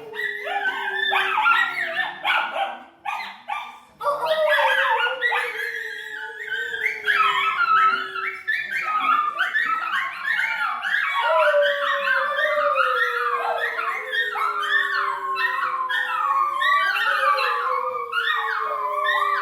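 Several dogs howling together: long low howls that slide slowly down in pitch, under a crowd of higher, wavering yips and howls. There is a brief lull about three to four seconds in, then the chorus picks up again and carries on.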